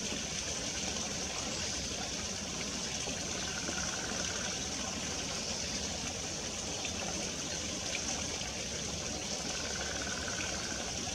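Steady flowing and trickling of a shallow brook, with two faint, brief higher tones, one around four seconds in and one near the end.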